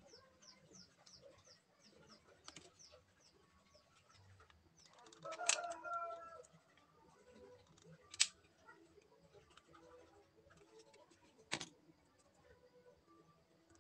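A rooster crows once, about five seconds in, after a quick run of high bird chirps in the first second. Three sharp clicks, most likely from the plastic parts or glue gun being handled, come about five and a half, eight and eleven and a half seconds in.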